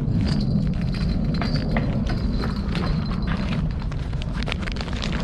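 Steady low wind rumble on the microphone, with scattered light irregular taps and knocks, from a small fish flopping on the deck or from footsteps on the boards.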